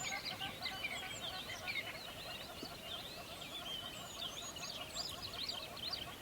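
A dense chorus of many birds chirping and calling at once, with short high chirps overlapping throughout and lower calls repeated several times a second underneath.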